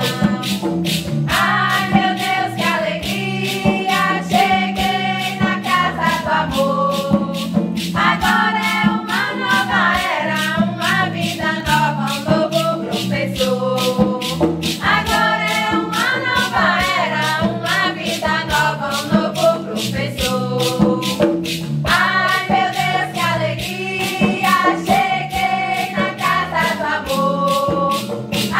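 Santo Daime hymn sung in unison by a small group of mostly female voices, in phrases a few seconds long. It is accompanied by acoustic guitar and a hand drum, with maracas shaking a steady, even beat underneath.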